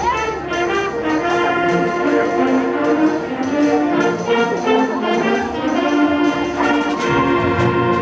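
School concert band of woodwinds, brass and percussion playing a piece, with held chords under a moving melody. The low bass notes drop away for most of the stretch and come back in about seven seconds in.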